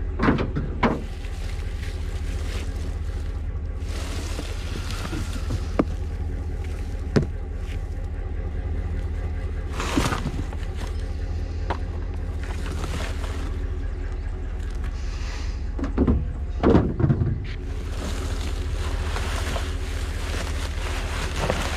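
A vehicle engine idles steadily under passing wind noise, with scattered knocks and clunks, several close together about three-quarters of the way through.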